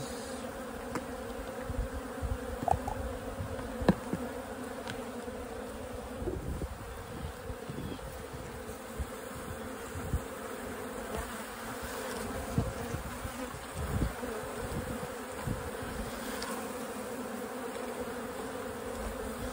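Honey bees from an open, crowded hive buzzing in a steady hum, with a few short knocks now and then.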